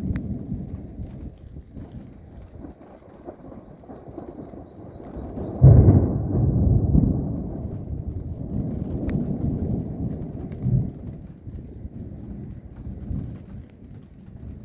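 Wind buffeting the microphone: an irregular low rumble that comes in gusts, the strongest about six seconds in.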